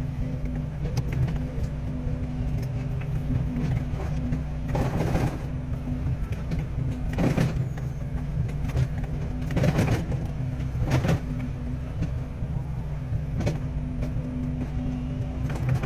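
Excavator's diesel engine running steadily, with several short, louder noises breaking in between about five and fourteen seconds in.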